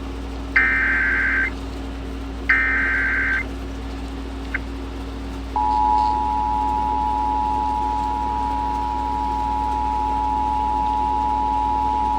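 Emergency Alert System tones: two one-second screeching bursts of the SAME digital header, a short click, then at about five and a half seconds in the steady two-tone EAS attention signal (853 and 960 Hz) starts and keeps sounding. The header bursts encode the alert, and the attention tone precedes the spoken severe thunderstorm warning.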